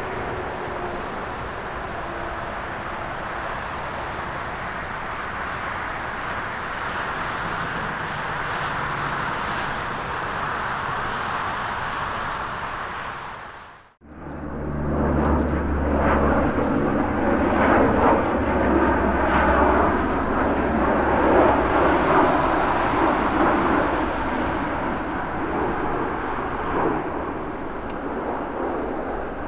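Lockheed C-130J Hercules turboprops (Rolls-Royce AE 2100, six-bladed propellers) running steadily. After an abrupt cut about halfway through, a louder, deep propeller drone with steady low tones follows, from a landing C-130H Hercules's four Allison T56 turboprops.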